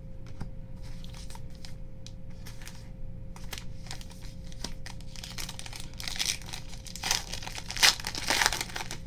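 Foil wrapper of a baseball card pack crinkling as it is handled, then torn open, with the loudest tearing and crinkling over the last three seconds.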